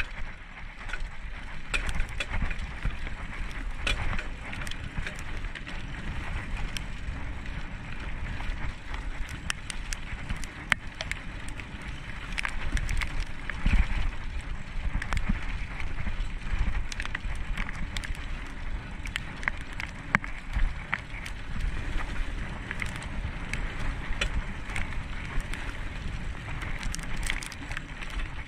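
Mountain bike rolling along a dirt trail: a steady rumble of tyres on the ground with frequent clicks and rattles as it goes over bumps.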